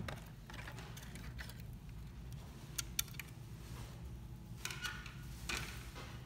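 Plastic clicks and handling rustle as the BYITNEK GP70 projector's bottom cover is unclipped and lifted off its casing, with two sharp clicks about three seconds in and a rustling clatter near the end.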